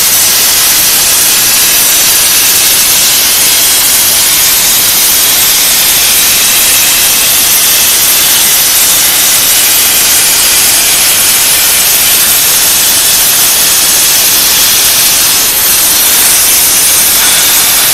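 A 300 A Huarong plasma arc on a CNC table cutter cutting through steel plate, a loud steady hiss that holds evenly throughout.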